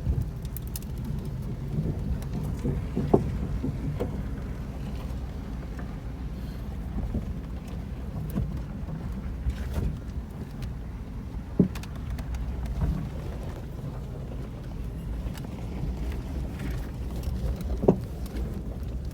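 Off-road 4x4 truck engine running steadily at low speed while crawling a rocky trail, with a few short sharp knocks from rocks under the tyres and suspension, the clearest about 3, 11 and 18 seconds in.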